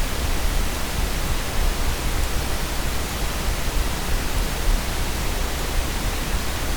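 Steady hiss of the recording's background noise, with a low hum underneath.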